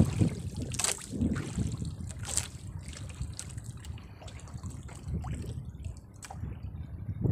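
Sea water lapping and sloshing against the side of a small boat, with two brief splashy hisses, about a second in and again after two seconds.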